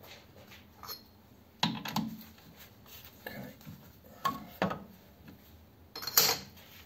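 Metal clanks and clinks as an aluminium fixture holding a carburettor top is freed from a stopped lathe's three-jaw chuck and lifted out. There are a few separate knocks, and the loudest clank comes near the end.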